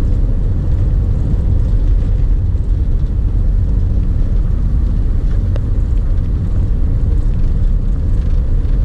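1960s British double-decker bus on the move, heard from on board: a steady, loud low rumble of engine and road noise.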